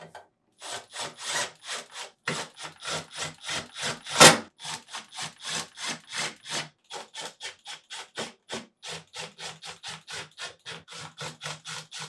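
Cordless driver running screws back into the freezer door's slide-rail brackets, in a rhythmic run of short rasping pulses about four a second, with one louder pulse about four seconds in.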